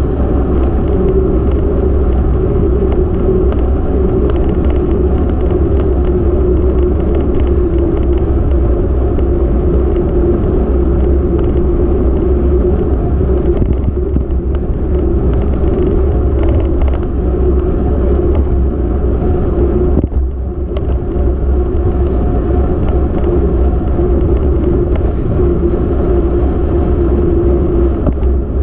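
Steady low rumble of wind and road noise on a camera carried by a vehicle moving along an asphalt road, dipping briefly about two-thirds of the way through.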